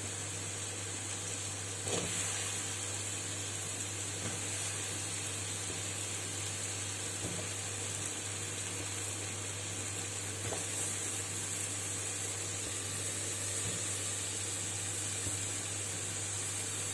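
Spiced onion-tomato masala sizzling steadily in hot oil in a pan, with a single sharp knock about two seconds in and a few faint clicks later. A steady low hum runs underneath.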